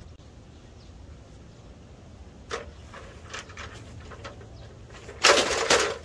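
Extension ladder being moved against a utility pole: a knock a little before midway and a few light clicks, then a loud, rough scraping rattle of the ladder near the end. A low rumble of wind on the microphone runs underneath.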